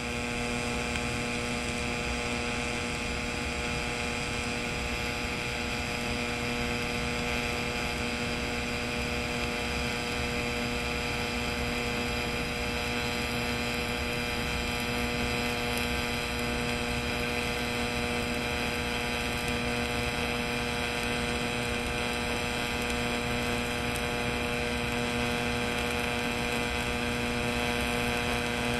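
TIG welding arc on steel, a steady electric hum with a hiss, holding unchanged without a break.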